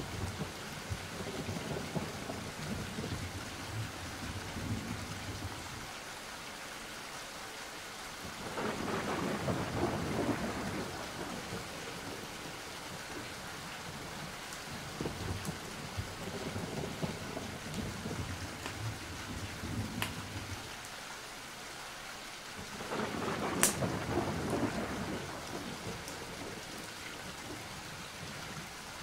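Steady rain with thunder: two rolls of thunder swell up and fade, one about nine seconds in and one about twenty-three seconds in, the second opening with a sharp crack.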